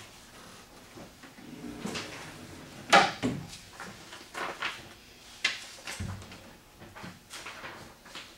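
Sheets of paper being shuffled and handled on a desk: a string of short, sharp rustles and light knocks, the loudest about three seconds in.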